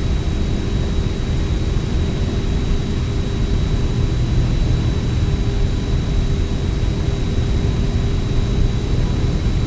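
Cabin drone of a light single-engine piston airplane's engine and propeller in flight, a steady low drone with a faint constant high whine over it.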